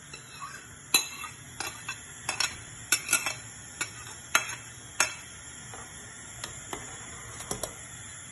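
Metal spoon clinking and scraping against a ceramic plate as stockfish is pushed off it into the soup pot: about a dozen sharp, irregular clinks.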